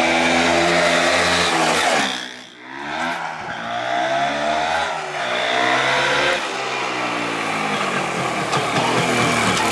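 MZ ETZ 301's single-cylinder two-stroke engine running and being blipped up and down, the revs falling back about two seconds in and again around six seconds. It runs without knocking after a rebuild with a new piston and rings, while its tune is adjusted.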